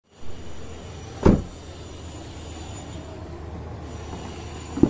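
Steady low background rumble, with a loud short thud about a second in and a sharper knock near the end.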